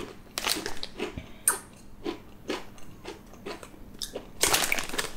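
Crunchy baked cheddar cheese crisps being chewed, with snack packets crinkling as they are handled; the crackling grows denser and louder near the end.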